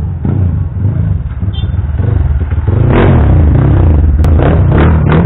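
Trail motorcycle engines running close by, getting louder about three seconds in, with a few short revs near the end.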